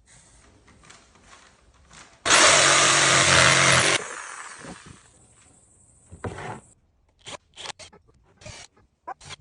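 A handheld power tool working on wood runs in one loud burst of about a second and a half, cuts off suddenly and winds down. Light handling knocks and scrapes follow.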